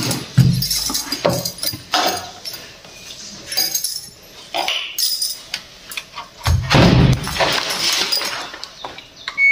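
Clothes being handled at a top-loading washing machine: fabric rustling with scattered knocks and clinks. About seven seconds in there is a louder thud and rustle as the lid is shut and the machine's cloth cover is pulled over it.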